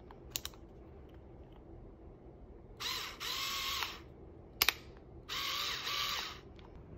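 Black+Decker cordless electric screwdriver motor run twice in short bursts of about a second each, whirring and then winding down in pitch. Sharp clicks come near the start and between the two runs.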